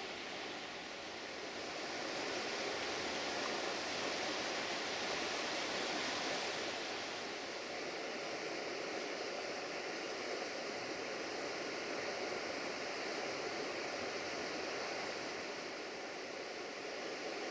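Steady outdoor rushing ambience: an even hiss-like noise with no distinct events, swelling slightly a couple of seconds in and easing back after about seven seconds.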